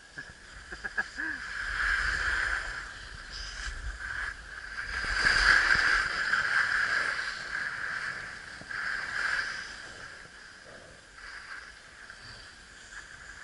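Skis scraping and hissing over packed snow on a downhill run, the sound swelling and fading in waves with the turns, loudest about five to six seconds in.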